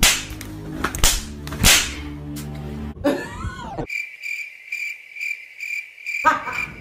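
Sharp cracks over a low, steady drone, then a sudden hush in which a cricket-chirp sound effect pulses about three times a second. This is the edited-in 'crickets' gag for an awkward silence.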